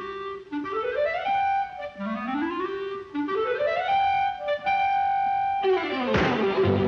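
Cartoon score music with a clarinet playing three upward glissandi, each ending on a held high note. About six seconds in, a sudden loud hit with a steep downward swoop.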